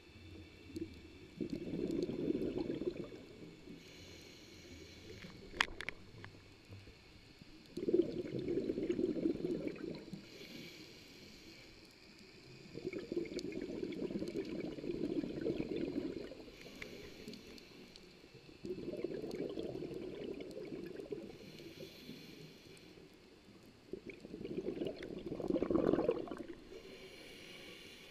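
Scuba diver breathing through a regulator underwater: five long, bubbling exhalations of about two seconds each come every five to six seconds, with a faint hiss of inhalation between them. A single sharp click about five seconds in.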